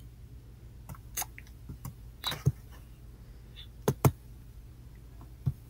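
A handful of short clicks and taps from working a computer while browsing, two close together about four seconds in, over a low steady hum.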